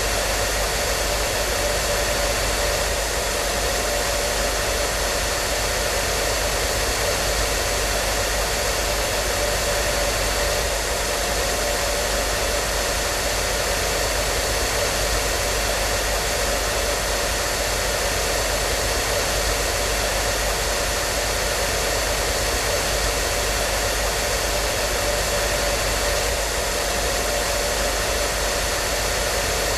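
Hair dryer running steadily: a continuous, even blowing hiss with a faint steady hum.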